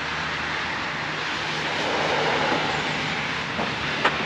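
In-cabin noise of a tuned Audi RS7 C8 at speed: its twin-turbo 4.0-litre V8 droning at steady revs under heavy wind and tyre noise, which swells a little midway. A couple of sharp clicks come near the end.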